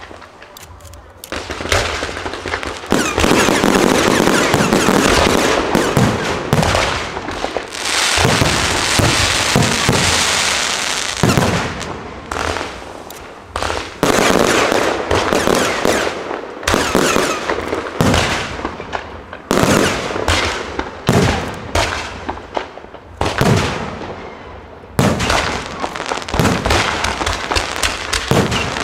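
Aerial fireworks display: shells launching and bursting in a rapid, uneven series of bangs. For several seconds in the first half the bangs merge into one continuous din.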